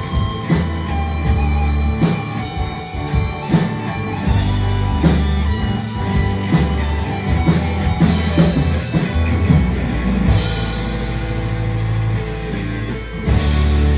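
Rock band playing live, an instrumental stretch with drum kit, electric guitar and sustained bass notes.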